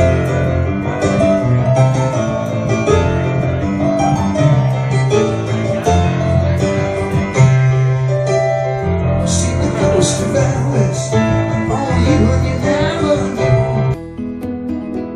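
Background music: piano-led instrumental with a steady beat and plucked guitar, turning quieter and sparser near the end.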